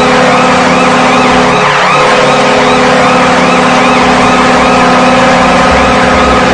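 Washington Capitals goal horn: a loud, steady multi-tone horn blast with a rapidly repeating warbling, siren-like tone layered over it.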